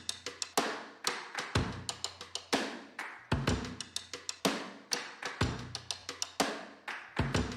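Music: a steady drum-kit beat with kick drum, snare and quick cymbal or hi-hat hits, without vocals.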